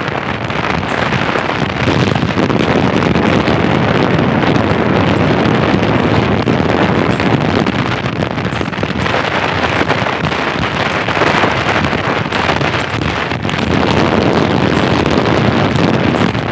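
Loud wind rushing across the microphone, a dense steady noise that swells and eases over several seconds.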